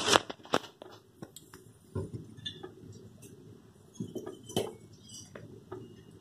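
Scattered light clinks and taps of a spoon and kitchen vessels, a louder one about four and a half seconds in, over a faint low hum.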